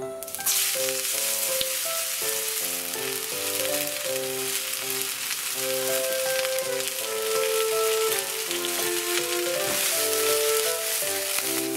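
Julienned potato, green pepper and leek frying in hot oil in a wok, a dense sizzle that starts suddenly about half a second in and holds steady. Background music plays over it.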